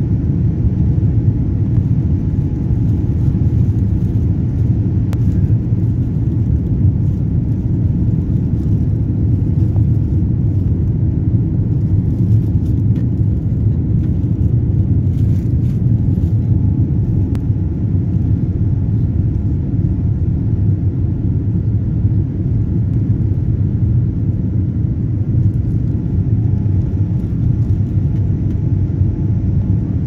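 Airliner cabin noise during the climb after takeoff: the jet engines and rushing air make a steady low rumble heard from inside the cabin, with a faint steady whine above it.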